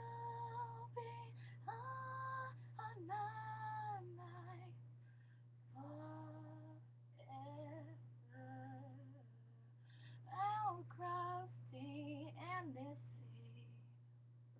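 A woman singing unaccompanied, several phrases of held, slightly wavering notes with short breaths between them, quieter near the end. A steady low hum sits underneath.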